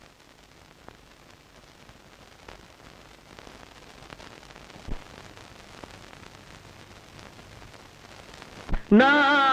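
Faint, even hiss of an old film soundtrack with a few soft clicks and a dull thump about five seconds in. Near the end, after a second thump, a man's voice comes in loudly, singing a held, wavering note as a song begins.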